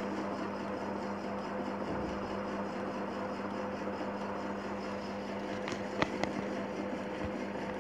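A steady low hum with a background hiss, broken by a few short clicks near the end.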